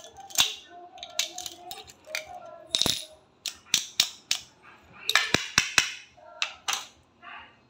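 A key worked in a steel padlock, then the lock and keys clinking and clicking as they are handled and set down on a tile floor: a dozen or so sharp, irregular metallic clicks.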